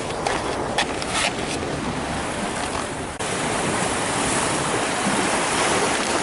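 Sea surf washing on the shore: a steady rush of noise with a few sharp clicks in the first part. About three seconds in it changes abruptly to a louder, even rush.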